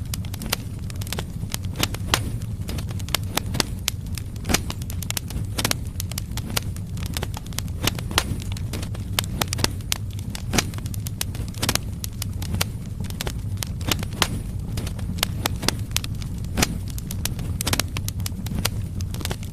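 Firewood logs burning in a fireplace: steady low rumble of the fire with frequent irregular sharp crackles and pops.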